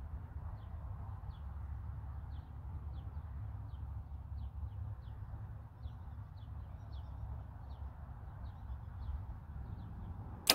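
Steady low rumble outdoors with a bird's short chirps repeating about twice a second, then near the end one sharp snap as a Mathews V3 compound bow is shot.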